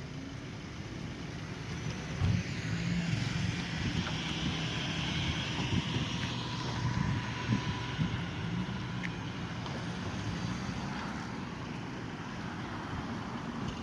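City ambience outside a railway station: a heavy vehicle's low engine rumble swells about two seconds in and runs on, with a hiss of passing traffic rising and fading in the middle.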